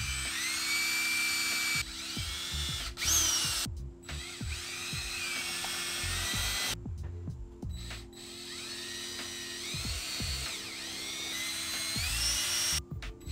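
DeWalt cordless drill driving screws through an L bracket into a wooden ceiling: the motor whine starts and stops in several runs, gliding up and down in pitch, with short pauses about four, seven and thirteen seconds in. Background music with a steady held chord underneath.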